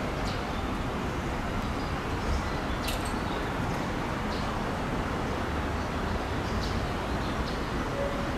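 Open-air railway platform ambience: a steady low rumble and hiss of distant traffic, with a few faint, brief high-pitched sounds.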